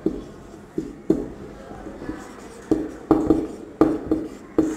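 Whiteboard marker writing on a whiteboard: a string of short squeaks and taps as each stroke is drawn, coming in clusters about a second apart.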